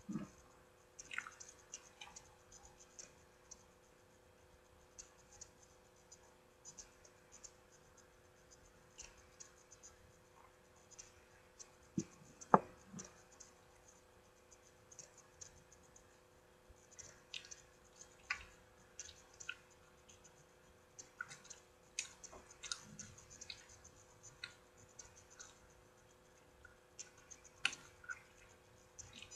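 Cinnamon roll being handled, pulled apart and eaten: soft scattered crinkles and clicks of its paper wrapper and of chewing, with a couple of sharper clicks near the middle.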